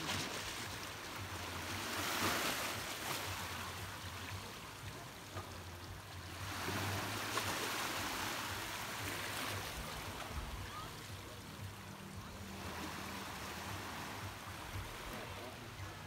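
Small sea waves washing over stones in the shallows at the water's edge, the wash swelling and fading three times.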